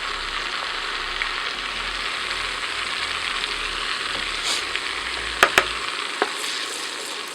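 Onion sizzling in melted butter and turmeric in a pan, a steady frying hiss, with a few sharp clicks of a utensil against the pan about five and a half seconds in.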